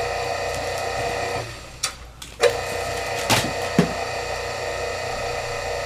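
Small electric motor of a benchtop wire-stripping machine humming steadily. The hum fades out about a second and a half in and comes back a second later with a sharp click, followed by a couple of knocks.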